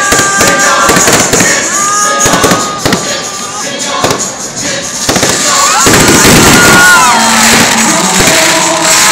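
Aerial fireworks bursting and crackling in rapid, continuous bangs, with music playing underneath.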